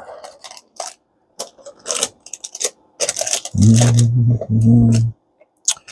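Small hard objects clicking, clattering and scraping on a workbench as things are rummaged through, with two short low hums about halfway through.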